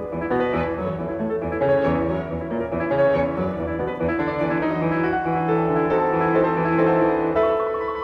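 Background music: a gentle classical-style piece played on piano, with held low notes underneath.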